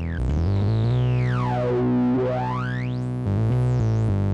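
Electronic synthesizer playing a low sustained note, with a few quick note steps early on. A resonant filter sweeps down through the tone and back up again.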